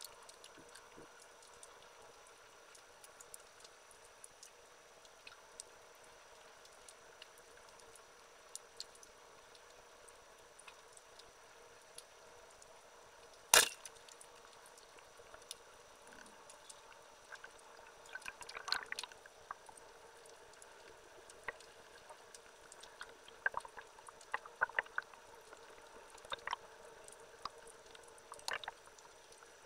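Underwater ambience recorded through a camera's waterproof housing: a faint steady hiss with scattered small clicks and crackles, more frequent in the second half, and one sharp, loud click about halfway through.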